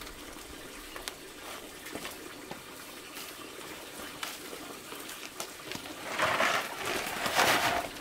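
Milled grain rushing and rustling as it is poured and handled in a plastic tray, in two swells near the end, after a few light knocks.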